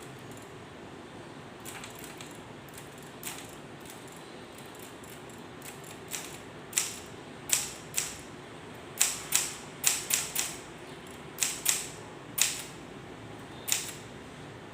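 Keys of a K Clover 815 manual typewriter being struck one at a time, each a sharp clack. The strokes come irregularly: a few faint ones at first, then about a dozen loud ones in the second half.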